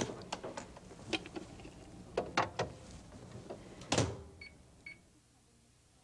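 A dish set into a microwave oven with a series of clatters and knocks, the oven door shutting with a thump about four seconds in. Then two short keypad beeps about half a second apart as the cooking time is entered.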